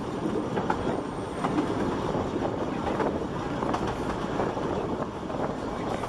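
Narrow-gauge Ffestiniog Railway carriages running along the line, heard from a carriage window: a steady rumble of wheels on rail with frequent irregular clacks.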